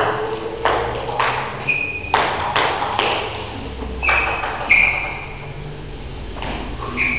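Table tennis rally: the ball clicks off the bats and table about eight times in the first five seconds, each hit echoing in the hall, with short high squeaks between hits. It then goes quieter as the point ends.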